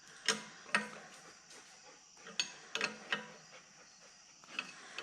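Several sharp metal clicks and clinks, irregularly spaced about half a second to a second and a half apart: a wrench working on a pressure washer's metal hose and tip fittings.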